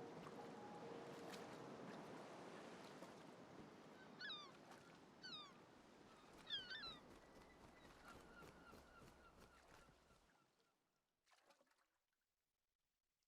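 Faint background noise with three short animal calls about four, five and six and a half seconds in, fading out to silence near the end.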